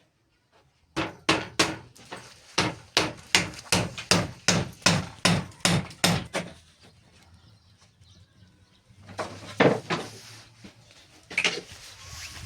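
A hammer striking repeatedly, about three blows a second for some five seconds, then a few scattered knocks.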